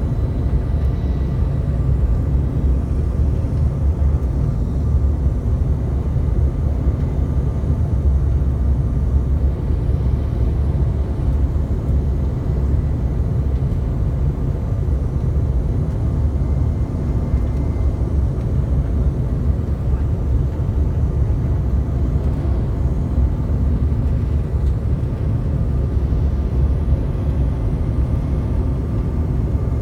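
Steady cabin noise of a CRJ-700 regional jet on final approach: a low rumble of airflow and the rear-mounted jet engines, with a faint steady whine above it.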